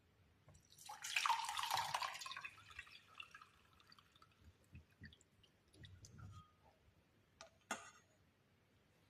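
Liquid being poured for about a second and a half, followed by scattered drips and small clinks, with a sharper clink near the end.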